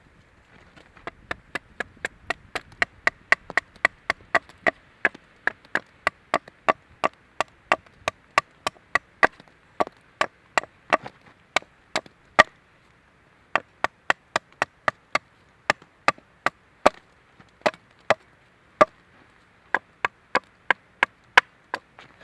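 Rapid, regular blows of a hand tool on wood, about two to three a second, each with a short ringing tone, with a brief pause about halfway through.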